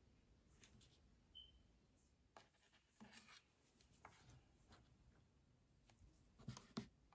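Near silence with faint handling noise: plastic camera accessories rubbed and shifted in the hand and on a desk, ending in two light clicks near the end.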